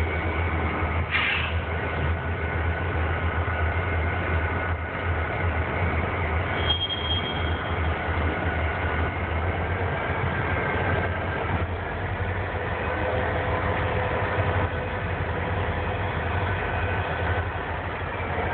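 Norfolk Southern diesel-electric locomotives rolling slowly past, their engines running with a steady low rumble. A short high-pitched squeal comes about seven seconds in.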